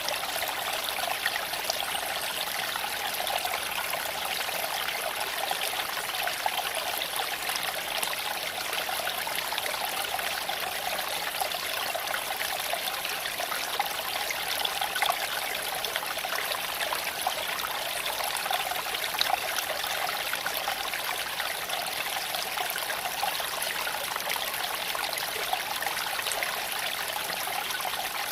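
Creek water flowing over smooth stones: a steady babbling and trickling.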